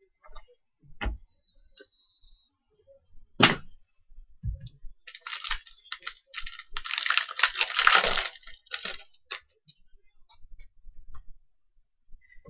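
A trading-card pack's wrapper crinkling and tearing as it is opened, for about four seconds in the middle. Before it come a sharp crack, the loudest sound, and a low knock as cards and packs are handled on the table. Small clicks of cards being handled follow.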